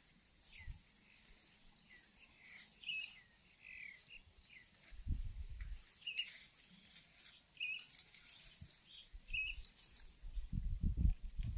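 Small birds chirping with short, scattered calls, over low rumbling bumps about five seconds in and again near the end.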